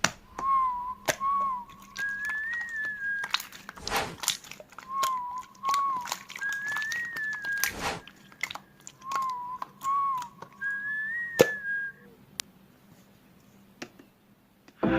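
A short whistled tune, the same phrase whistled three times: two low wavering notes, then a higher note that rises and falls. Scattered clicks and taps sound through it, and the whistling stops about twelve seconds in.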